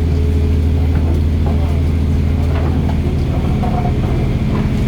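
Fishing boat's engine running steadily, a loud, unbroken low drone with a constant hum above it.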